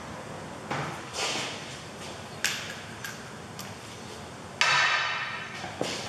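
A few short metallic knocks and clanks from tools and the wheel being handled, with one louder clattering, ringing clank a little over halfway through.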